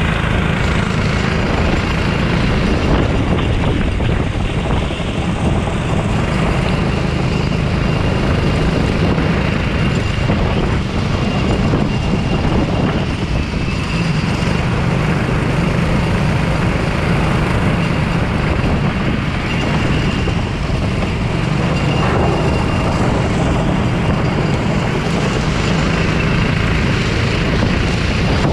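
Go-kart engine running steadily, with no sharp revs or impacts.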